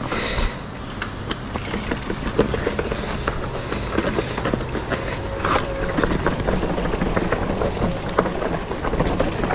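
Mountain bike rolling down a rough trail: a steady rumble of tyres and wind on the camera microphone, with frequent small clicks and knocks as the chain and frame rattle over bumps.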